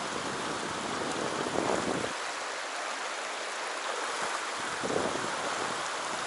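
Shallow mountain stream rushing steadily over rocks in a riffle. During the first two seconds, wind also rumbles on the microphone.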